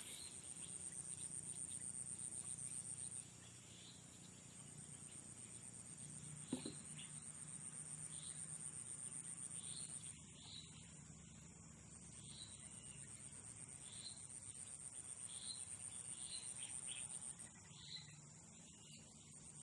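High-pitched insect trill, a fast steady pulsing that stops twice for a second or two before starting again. Faint short chirps repeat about once a second behind it in the second half.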